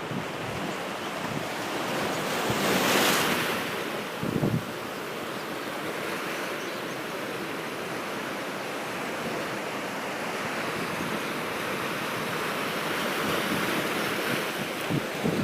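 Sea surf breaking and washing up a beach, with wind buffeting the microphone in a few short low thumps. One wave swells loudest about three seconds in, and another washes in near the end.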